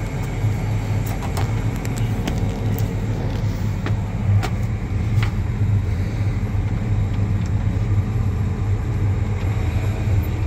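Feller buncher's diesel engine idling steadily with a low, even hum, with scattered light clicks and knocks over it.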